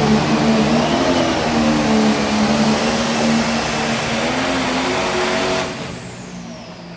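A John Deere light pro stock pulling tractor's engine running at full throttle under load during a pull. About five and a half seconds in the throttle is cut at the end of the run: the engine sound drops sharply and a high whine falls away.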